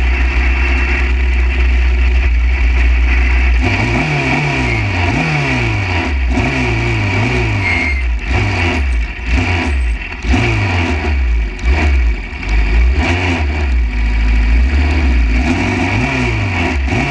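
Formula Junior single-seater's engine, heard from on board. It runs low and steady at first, then from about four seconds in it is revved up and down in a string of short blips while the car rolls at pit-lane speed.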